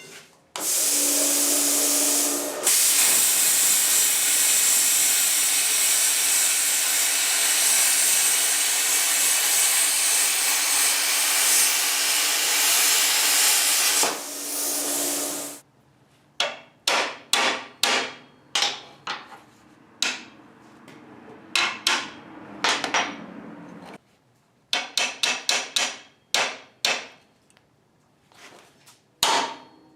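A loud, steady hissing noise from a workshop tool for about fifteen seconds, then hammer blows on steel, some single and some in quick runs, each ringing briefly.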